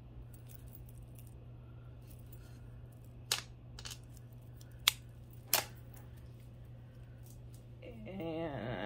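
Metal rhinestone costume jewelry clicking as it is handled: four short, sharp clicks in the middle, over a low steady hum. A brief murmured voice near the end.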